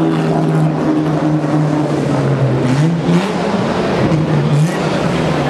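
Racing car engine running at a steady idle, with a couple of brief throttle blips about three and four and a half seconds in.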